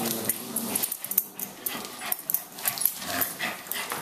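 Two dogs playing tug-of-war with a plush toy, growling in play, with claws scrabbling and scuffling on a wooden floor.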